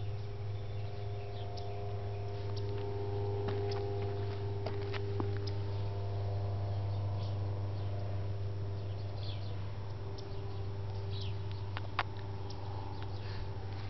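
A steady low hum with a few faint steady higher tones over it, and scattered brief high chirps and clicks, one sharper click about twelve seconds in.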